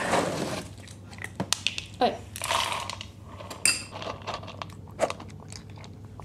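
A domestic cat crunching dry kibble from a plastic bowl: a run of small, irregular crunches and clicks. There is a louder burst of noise at the very start.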